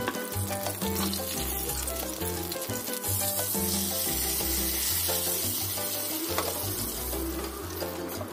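Hot oil poured from a frying pan onto ground chilli sambal in a stone mortar, sizzling from about three seconds in and dying down over the next few seconds. Background music plays throughout.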